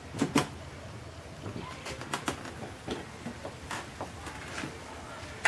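Screwdriver and plastic corner-lamp housing clicking and tapping as the lamp is worked into place beside a car headlight. There are two sharp clicks at the start, then scattered lighter taps.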